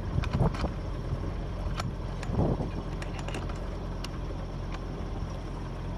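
Sailboat's engine running steadily as the boat motors out under power, with a few light knocks and clicks from the cockpit over it.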